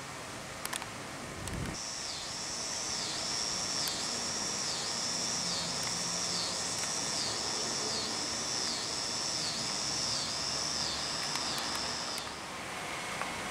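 Cicada buzzing, a high shrill drone that pulses and dips a little more than once a second. It starts about two seconds in and stops shortly before the end.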